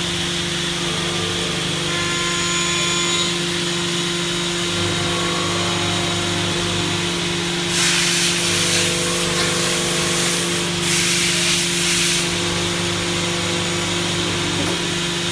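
CNC milling machine running with a steady hum. About eight seconds in, a loud hiss starts and runs for about four seconds, dipping briefly near the middle.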